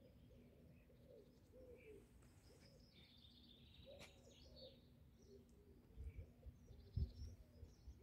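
Faint birdsong: small birds chirping high over a run of short, low repeated calls. A few low bumps come near the end, the loudest about seven seconds in.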